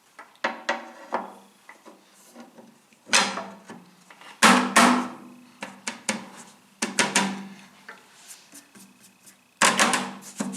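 Metal hand tools and table saw parts clanking and clinking as a part is adjusted and tightened: an irregular series of sharp knocks with brief ringing, loudest about four and a half seconds in and near the end.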